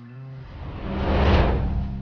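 A deep rumbling whoosh, a film sound effect, that swells to its loudest about a second and a half in and then fades, over a low held note of the soundtrack music.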